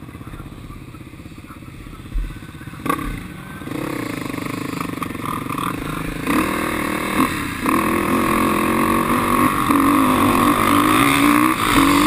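Quad (ATV) engine ticking over at low revs, then revving up as the quad pulls away and running hard at high revs across the field, with a couple of knocks from the machine about two and three seconds in.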